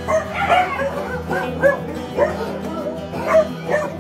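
A dog yelping and barking in short, high calls about every half second, over background music.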